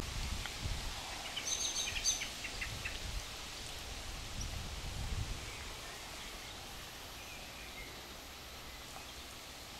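Faint outdoor background noise with a low rumble, and a short run of high bird chirps about one and a half to three seconds in.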